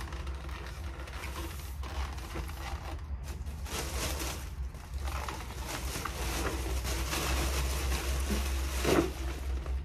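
Irregular rustling and handling noises with a few light clicks, over a steady low hum.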